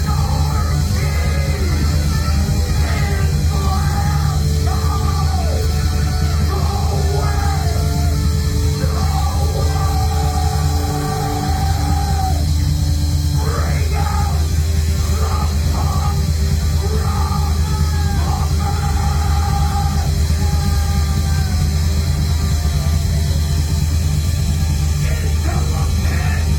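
Live heavy rock band playing loud, with a heavy, dense low end and yelled vocals over it.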